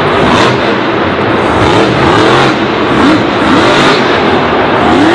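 Vehicle engine revving loudly, its pitch rising and falling over and over.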